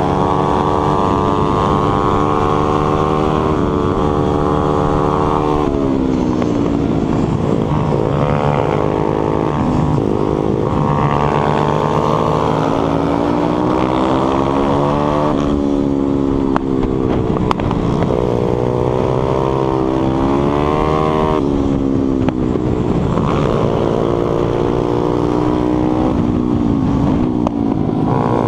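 Pitbike's 140cc single-cylinder four-stroke engine heard from on board at racing speed, its note climbing under acceleration and falling sharply three times as the rider backs off for corners, with wind rumble on the microphone.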